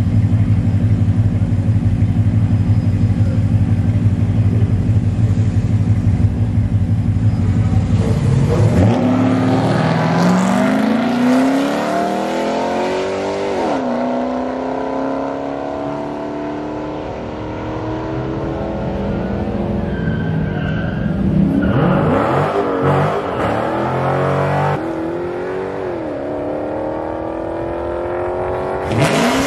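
Ram 1500 pickup's engine rumbling steadily on a drag strip start line, then launching about nine seconds in. Its revs climb in rising sweeps broken by gear shifts as it runs down the track. Right at the end another pickup's engine revs up sharply.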